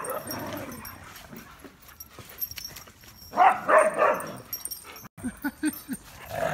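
Lurcher-type dogs play-fighting over a pumpkin: a loud burst of barking about three and a half seconds in, and a few shorter, lower sounds near the end.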